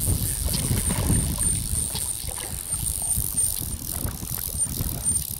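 Wind buffeting the microphone, a steady low rumble, with a few faint ticks.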